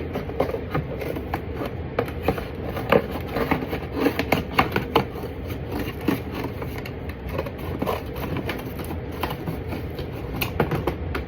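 Irregular clicks, taps and rustles of hands working with cardboard and craft materials, denser in the middle stretch.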